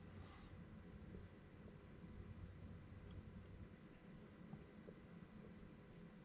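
Near silence with a cricket chirping faintly, a high-pitched chirp repeated about three to four times a second.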